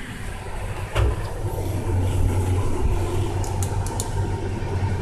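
A steady low hum, with a single knock about a second in and a few faint high clicks a little before the end.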